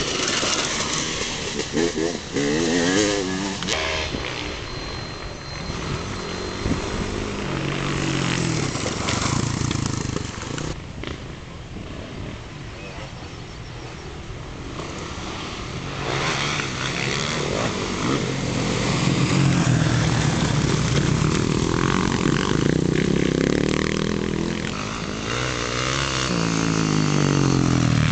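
Enduro dirt bikes riding past one after another, engines revving up and down as the riders accelerate and shift. The engines fade somewhat around the middle and grow louder again over the second half as bikes come close.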